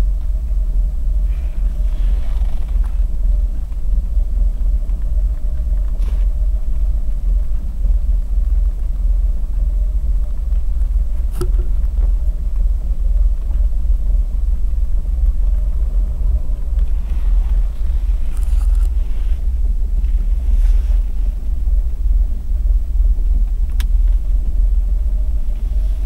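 Mercedes-Benz W126 engine idling steadily at about 1000 rpm on LPG, with a deep, constant rumble heard from inside the cabin. The petrol has been run out and the gas reducer is warming up, which the owner expects to settle the running.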